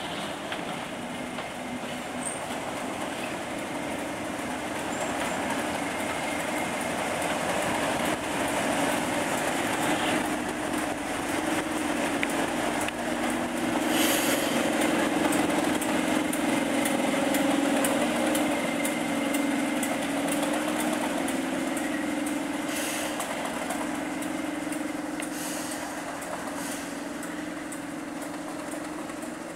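Class 37 diesel-electric locomotive's English Electric V12 engine running steadily as it moves slowly past with its coaches, loudest about halfway through as the locomotive passes, with a few sharp wheel clicks over the rail joints.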